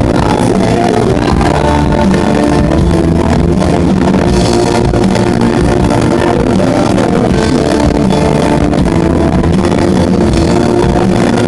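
A live rock band playing loud and steady with guitars and drums, heard from the audience through the venue's PA.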